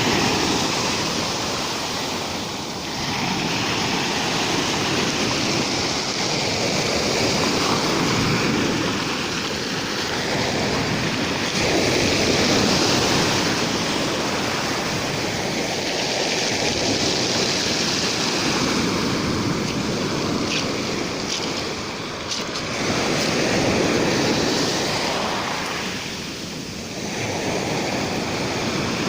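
Rough Black Sea surf: waves breaking and washing in, swelling and easing every few seconds.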